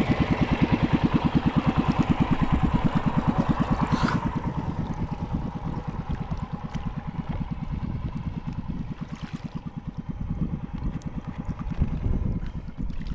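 Small fishing boat's engine running with a fast, even putt. It eases off after about four seconds and picks up again near the end.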